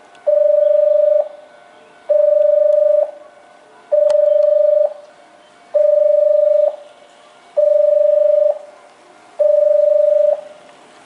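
Railway platform warning alarm beeping at an even, steady pitch, about one beep every second and three quarters, each held nearly a second, six times over: the signal that a non-stopping train is about to pass through the station.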